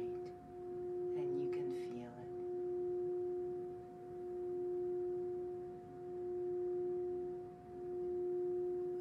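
Metal singing bowl being rimmed with a stick, giving one steady, pure humming tone that swells and fades in a slow pulse about every two seconds.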